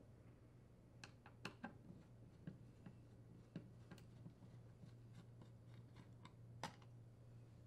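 Near silence with scattered faint clicks and ticks of a Phillips screwdriver turning out the screws that hold an air conditioner control board in its plastic mounting frame, the clearest click near the end.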